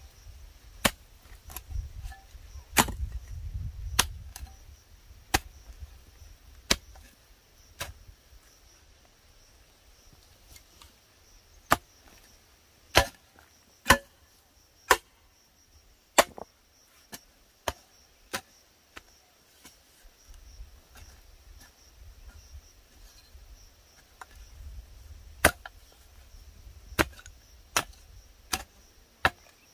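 Sharp knocks of a tool striking wood, single blows spaced about a second apart with a pause of several seconds in the latter part. A steady thin high whine runs behind them.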